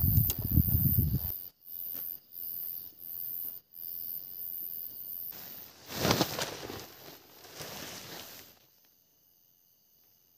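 Insects chirring steadily in a high pitch, over rustling and knocking from someone moving around on the forest floor. Heavy thuds come in the first second or so and a louder rustling stretch about six seconds in. The sound breaks off abruptly several times and drops to near silence near the end.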